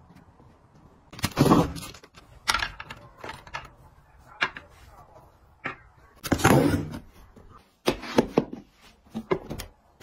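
Irregular plastic clicks, knocks and rattles as household plastic organisers (clothes hangers on a rail, a wall-mounted soap dish) are handled and set in place, with two longer rattling clatters, about a second in and past the middle.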